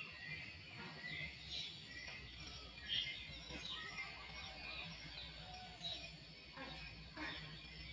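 Many small birds chirping and twittering in a continuous chorus of short high calls, one sharper chirp about three seconds in, over a faint low steady hum.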